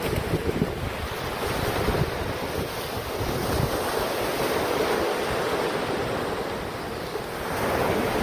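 Ocean surf washing onto a beach, with wind buffeting the microphone in low rumbling gusts.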